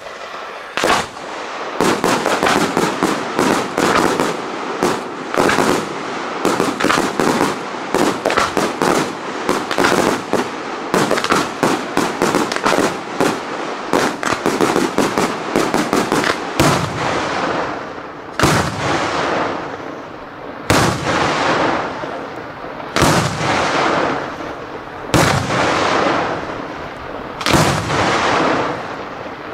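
Daytime aerial fireworks shells exploding in the sky. The bangs come in a dense, rapid barrage for about the first sixteen seconds, then slow to single loud bangs about every two seconds, each with a short echo.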